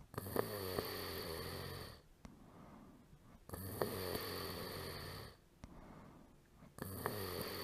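A person snoring: three long, rasping snores about three and a half seconds apart, the last cut short.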